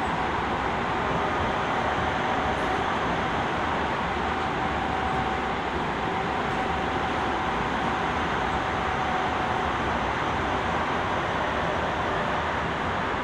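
Running noise of a Tobu 20070 series commuter train heard from inside the passenger car: a steady rumble and rush of wheels on rail. A faint steady whine comes through in the middle.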